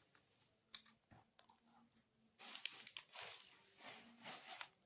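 Faint clicks, then scraping and crackling of plastic as the battery is pried and pulled out of the laptop's case.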